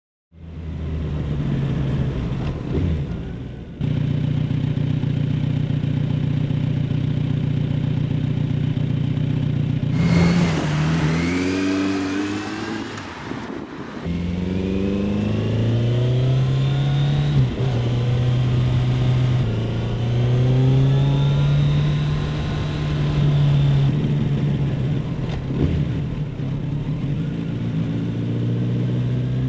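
Kawasaki Z900RS 948 cc inline-four engine and exhaust. It runs steadily at first, then revs and accelerates several times, the pitch climbing and dropping back at each gear change, with a few abrupt changes in the sound where the footage is cut.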